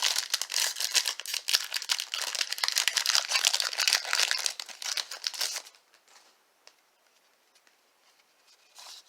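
Plastic trading-card pack wrapper crinkling and tearing as a pack is opened, a dense run of crackles lasting about five and a half seconds, then stopping.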